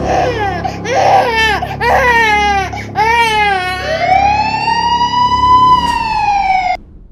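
A cartoon crying sound effect, a quick string of short falling wails, followed by a single long siren wail that rises, holds and slowly falls before cutting off abruptly near the end.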